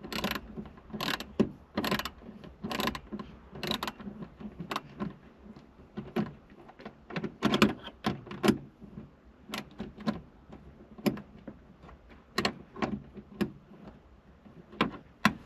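Hand wrench working bolts on a car's accelerator pedal mount: a string of irregular metal clicks and clacks, roughly one or two a second.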